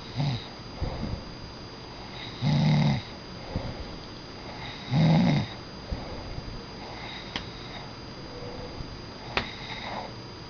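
A sleeping pet snoring: two loud, low snores about two and a half seconds apart, with softer snuffling breaths around them.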